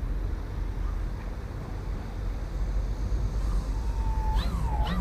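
Steady low rumble of wind buffeting the microphone. Near the end comes a warbling tone that glides up and down several times a second.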